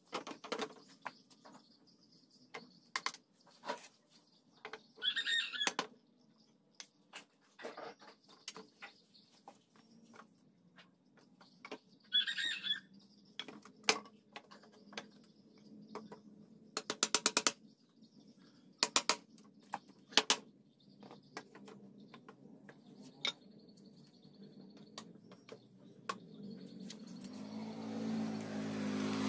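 Hammer blows knocking wooden posts into the mortise joints of a wooden table frame: sharp, irregular single knocks, with a quick run of taps about two-thirds of the way through. A bird chirps briefly twice, and music fades in near the end.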